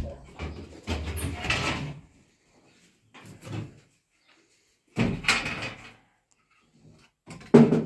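Split firewood being loaded into a sheet-metal wood stove, the logs knocking and scraping against the stove's metal door and firebox in about four separate clatters, the loudest near the end.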